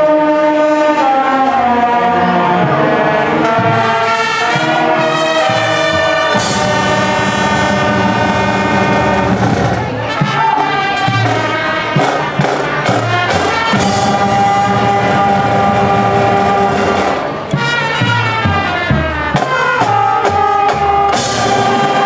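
Marching band playing: sustained brass chords with descending runs, cymbal crashes about six seconds in and again near the end, and a stretch of accented drum and cymbal hits through the middle.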